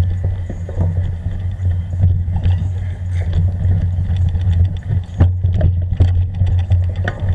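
A steady low engine-like drone from a vehicle travelling a rough forest trail, with many short rattles and knocks as it rides over the bumps; the knocks come thickest about five seconds in.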